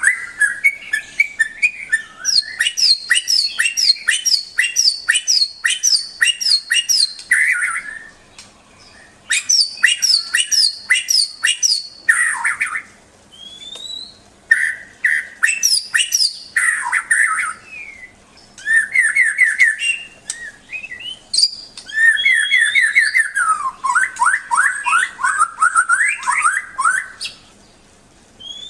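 A murai songbird singing a long, varied song of repeated sharp notes, fast trills and rising whistles, with short pauses between the phrases.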